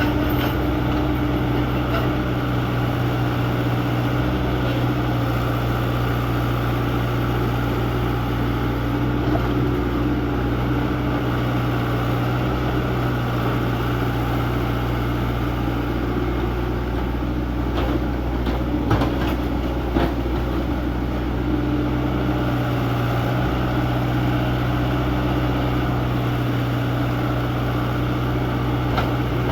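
Excavator engine running steadily at working speed while digging stone, with a few short knocks about two-thirds of the way through.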